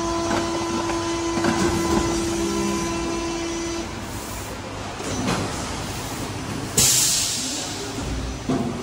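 Yawei PET preform injection moulding machine running: a steady hum with a held tone that stops about four seconds in, scattered clicks and knocks, and a sudden hiss of released air about seven seconds in that fades over a second.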